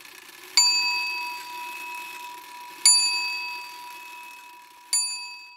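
A bell struck three times, about two seconds apart, each ring dying away slowly.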